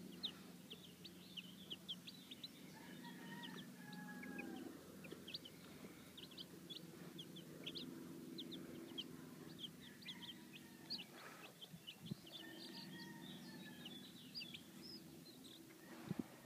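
Several young chicks peeping, many short high-pitched peeps scattered throughout, over a faint low steady hum.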